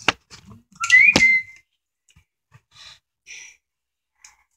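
Knocks and rustle of a phone being handled and set in place, with a brief high squeak about a second in, then a few faint soft sounds of eating.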